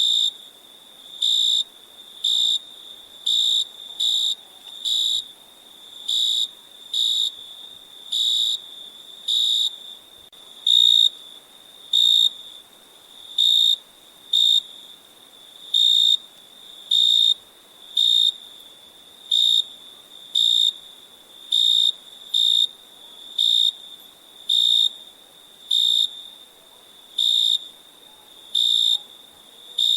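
A cricket chirping: short, bright chirps at one steady high pitch, about one a second and fairly evenly spaced, over a faint background hiss.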